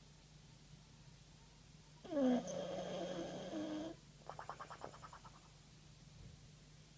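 Bulldog snoring in its sleep: one loud snore of about two seconds that starts with a falling pitch, followed by about a second of rapid fluttering, bubbly pulses as it breathes out.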